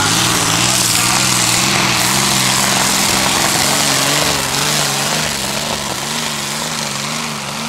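Pulling tractor's engine running loud, a hiss over a low engine note whose pitch wavers up and down; it eases off a little about halfway through.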